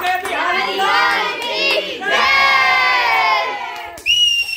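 A family group cheering and shouting together in overlapping voices, in two long swells. Near the end comes a short high whistle-like tone.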